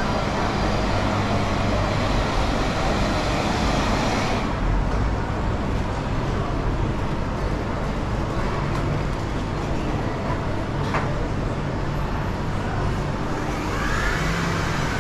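Steady background din of a busy indoor market hall, with a low hum underneath; a voice comes in near the end.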